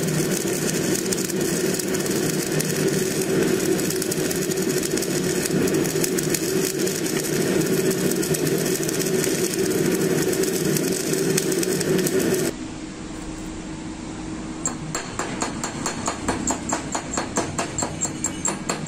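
MIG welding arc crackling and buzzing steadily while laying a horizontal fillet weld on steel, stopping abruptly about twelve seconds in. After a quieter pause, a fast, even run of taps follows near the end.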